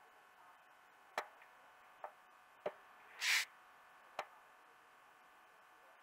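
Fingers handling the glass of an LCD TV panel: a few light clicks and taps, with one brief rubbing swish a little past the middle, the loudest sound, as the surface is wiped clean.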